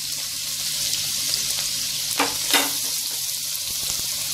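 Chopped garlic sizzling steadily in hot oil in a pan, with two short scrapes a little after two seconds in.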